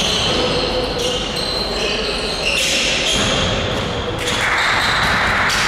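Basketball game on a wooden gym floor: sneakers squeaking in short high chirps as players cut and stop, with the ball bouncing.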